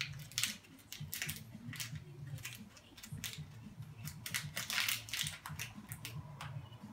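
Foil toy blind bag crinkling and crackling in a series of irregular short crackles as it is handled and torn open by hand.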